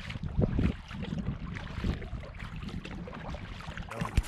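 Wind buffeting the microphone over splashing and dripping water from paddle strokes on a kayak. A sharp knock near the end.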